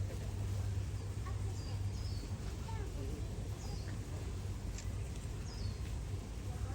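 Outdoor zoo ambience: indistinct chatter of distant visitors with a few short, high bird chirps over a steady low hum.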